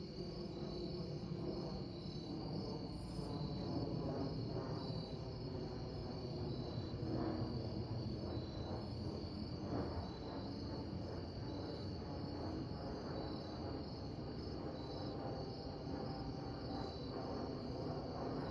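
Crickets chirping in a steady high pulsing chorus, over the low rumble of a distant aircraft passing overhead.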